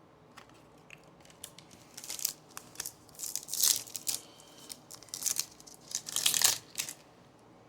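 Plastic foil wrapper of a baseball card pack being torn open and crinkled, in irregular crackling bursts that are loudest around the middle and again near the end, then stop.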